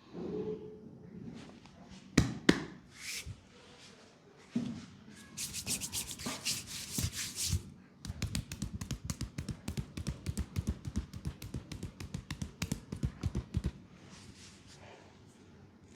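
Leg massage: a couple of sharp knocks, then brisk rubbing over skin, then a fast, even run of light taps for about six seconds.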